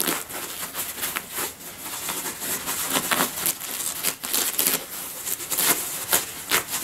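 Fingers scratching and picking at the outer layer of a paper kitchen roll and peeling its loose end away: a run of irregular dry rustles and scrapes, with a few sharper paper-tearing strokes.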